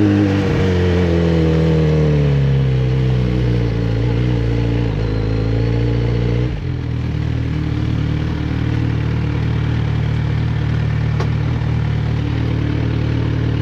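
Kawasaki Z900RS Café's inline-four engine winding down as the motorcycle slows, its pitch falling for about six seconds, then settling into a steady idle.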